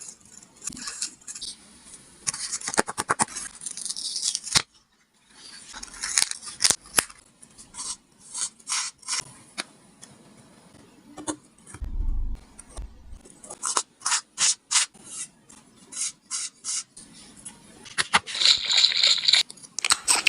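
Paper being handled for a craft: rustling, rubbing and scraping in short, irregular bursts with brief pauses, and a dull low bump about twelve seconds in.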